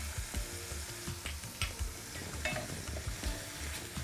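Onion, ginger and garlic paste with red chilli powder frying in oil in an enamelled cast-iron pan, sizzling while a spatula stirs and scrapes it, with scattered light taps of the spatula.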